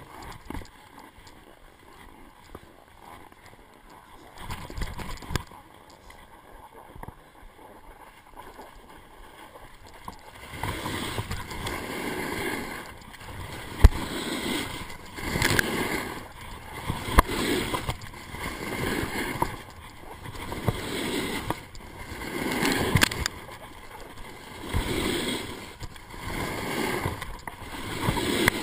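Alpine snowboard edges carving across packed snow: a rising and falling scrape with each turn, about every two seconds from about ten seconds in. Before that there is only faint gliding and wind noise, and a sharp knock comes about fourteen seconds in.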